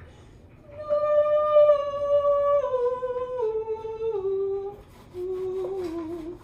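A woman humming a vocal warm-up exercise: a descending scale of held notes that steps down about four times, then, after a short break, a lower phrase that steps down again.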